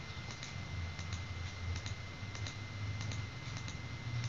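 Computer mouse clicking repeatedly at an uneven pace, a few sharp clicks a second, each click placing the next node of a line drawn with CorelDRAW's Bezier tool. A faint steady hum and a thin high whine sit underneath.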